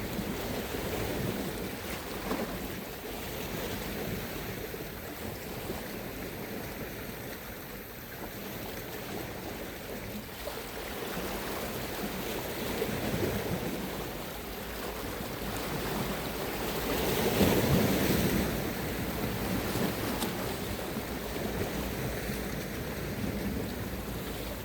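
Sea waves washing in and out at the shore, rising and falling in slow surges, the loudest about three-quarters of the way through, with wind rumbling on the microphone.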